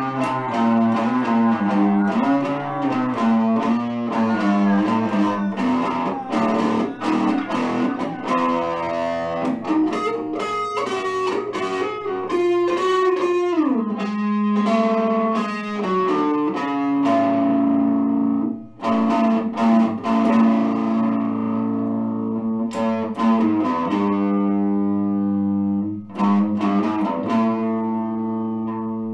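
Guitar-led band music: quick picked and strummed notes, a slide down in pitch about halfway through, then longer held chords.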